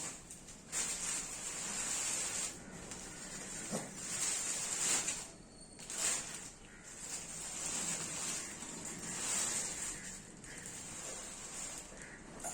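Rustling, hissing noise that swells and fades unevenly every second or two, with a few brief drops.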